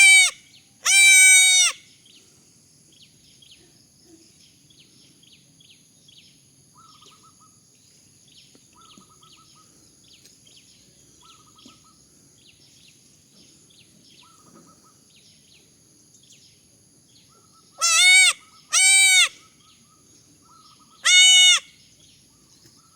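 Baby goats bleating: two loud, high-pitched bleats at the start, a long quiet gap with faint chirping, then three more bleats near the end.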